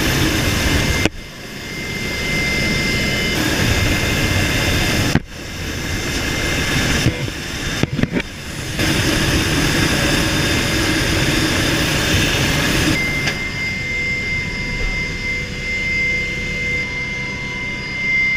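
EH-101 Merlin helicopter running in a hover, heard from its cabin: a steady rush of turbine and rotor noise over a high engine whine, broken by a few sudden brief dropouts. From about two-thirds of the way in the rushing thins and the whine stands out.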